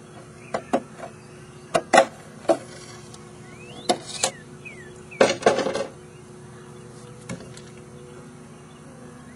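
Sharp plastic clicks and knocks from an RC monster truck's body shell and parts being handled as the shell is taken off and the fuel tank is reached, about a dozen in all, with the busiest clatter about five seconds in.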